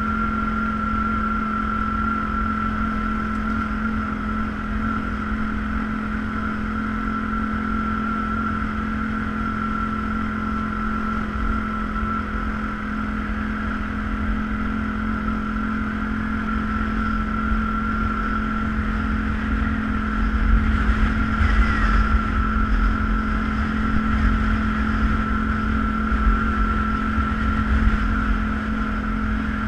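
ATV engine running at a steady speed, a constant drone with a steady whine over low rumble. Some louder jolts come about two-thirds of the way through.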